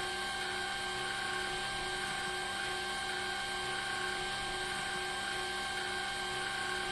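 Steady electrical hum and whine of the running flight-simulator cockpit, several steady tones over a low hiss, unchanging throughout.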